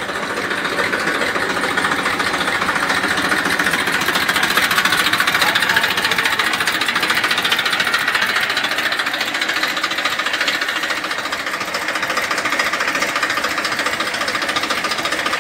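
Massey Ferguson 1035 tractor's three-cylinder diesel engine running steadily, with a fast, even diesel clatter.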